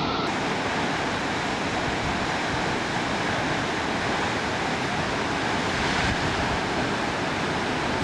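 Steady rushing roar of a waterfall, even in level with no gusts or breaks.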